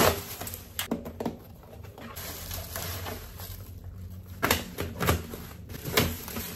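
Bubble wrap and plastic parcel packaging rustling and crinkling as it is cut open and pulled apart, with several sharp crackles.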